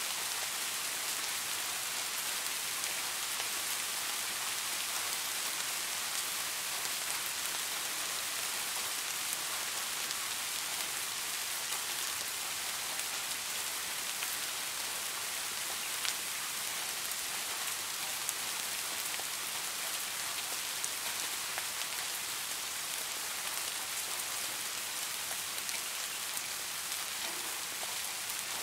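Steady rain falling: a dense, even hiss of drops, with scattered sharper ticks of single drops.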